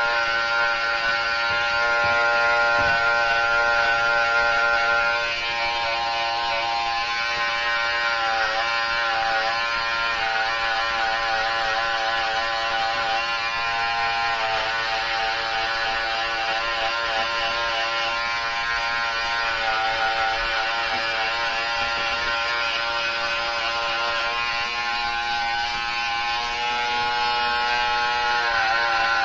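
Corded electric hair trimmer buzzing steadily as it cuts hair close to the scalp, its pitch dipping briefly three times.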